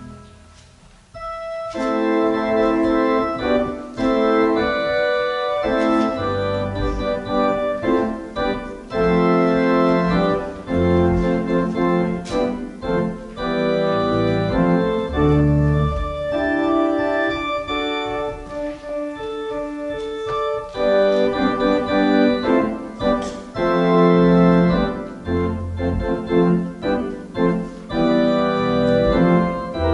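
Church organ playing held chords over low pedal bass notes. After a brief break at the very start, the playing resumes about a second in.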